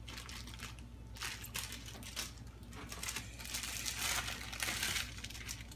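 Plastic film being peeled off a hot, just-microwaved frozen lasagna tray, crinkling in a series of short rustles.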